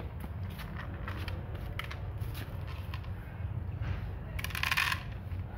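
A cat crunching dry kibble from a bowl: a run of small sharp crunches and clicks over a steady low rumble, with a louder crunching burst about four and a half seconds in.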